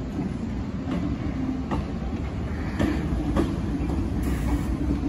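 MTR Tsuen Wan Line electric train running over depot yard tracks: a steady low rumble of wheels on rail with irregular sharp clicks as the wheels pass over rail joints and points.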